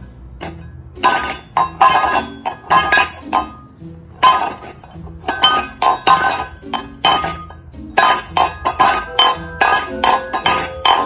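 Empty stainless steel bowl clanking and ringing against a windowsill as a cat paws and tips it, in quick runs of knocks with a short pause about four seconds in.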